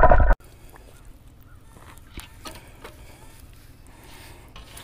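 Faint, muffled clicks and scrapes of a metal-detecting sand scoop digging into lake-bottom sand and gravel, heard with the camera underwater. A louder sound cuts off suddenly just after the start.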